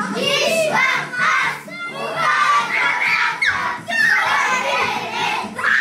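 A group of young children shouting and singing together, many voices at once, with music playing underneath.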